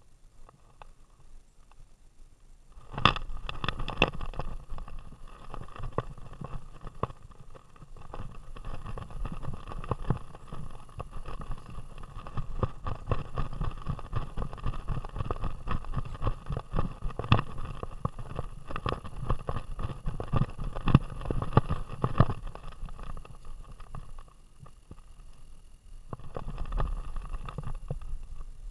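Handling noise from an action camera strapped to a running dog's vest: rapid knocking and rattling as the dog runs, starting about three seconds in, dropping off briefly about three-quarters of the way through and picking up again near the end.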